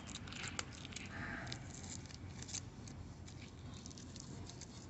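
Fingers picking and scratching at the plastic seal on the end of a shuttlecock tube: faint, irregular scratchy clicks and crinkles.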